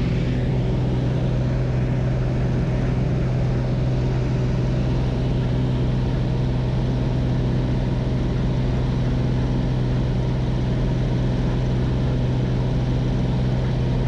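Steady drone of a single-engine propeller plane in flight, heard from inside its cabin: a deep even engine hum with rushing air noise over it, unchanging throughout.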